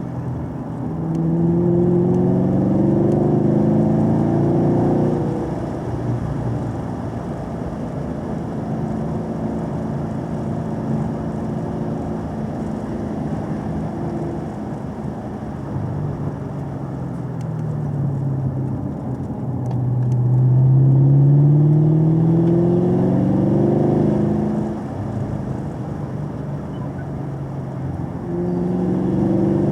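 Car engine pulling hard through the bends, its pitch climbing from about a second in, easing off, dropping, then climbing again in a second long pull and once more near the end.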